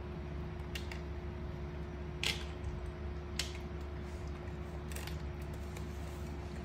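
A few sharp mouth clicks and smacks from a pet monkey eating fruit, the loudest about two seconds in, over a steady low hum.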